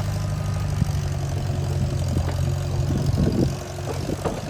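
Track loader's diesel engine running steadily, with a few metallic clanks about three seconds in; the engine note drops soon after.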